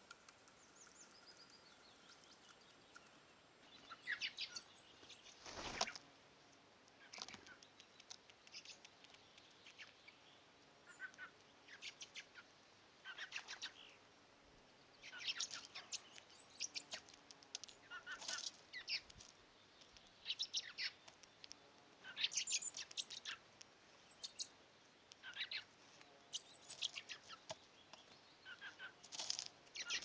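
Small songbirds singing and calling, short high-pitched phrases coming every second or two, with one loud thump about six seconds in.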